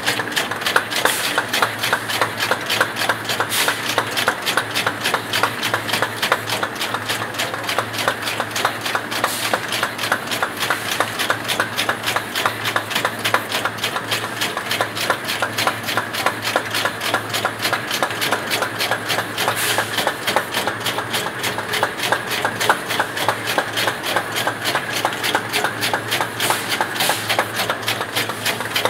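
Plastic bottle-cap moulding machine running: a rapid, steady clatter of clicks over a constant low hum.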